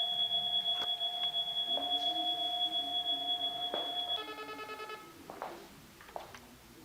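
Electronic call ringtone of an IP video doorbell intercom: a steady high tone that stops about four seconds in, followed by a brief pulsing tone that fades out. A few faint clicks sound over the tone.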